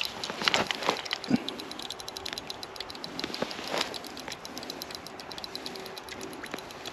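Fast, steady ticking throughout, with a few louder short sounds in the first second or so and again near four seconds.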